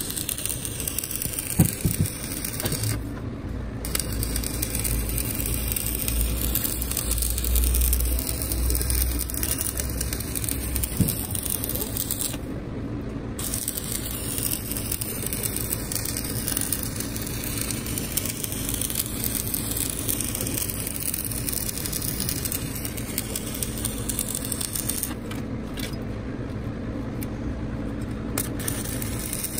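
Electric arc welding on a steel truck spring-balance pin held in a lathe chuck: a steady crackling hiss from the arc. The hiss drops out briefly a few times when the arc stops.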